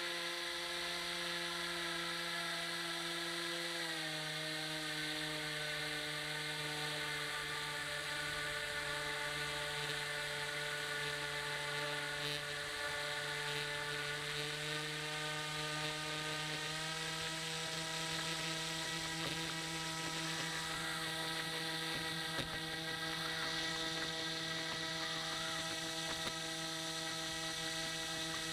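The motor of a radio-controlled model rescue boat, carrying the camera, whines steadily. Its pitch drops about four seconds in and rises again a little past the middle as the throttle changes.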